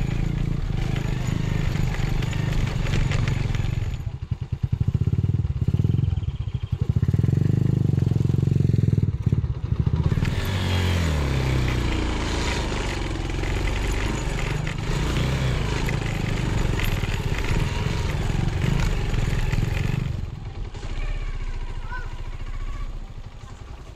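Small motorcycle engine running as it is ridden over a rough dirt track, heard from the rider's seat. Its pitch shifts a little before the middle as the revs change, and it gets quieter near the end.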